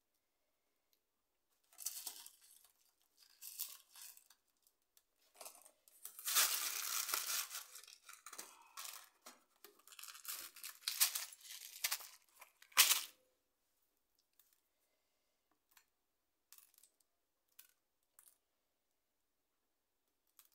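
A packet being torn open and crinkled, in irregular rustling bursts that are loudest about six to eight seconds in and end with a sharp rip about thirteen seconds in. After that there are only a few faint ticks.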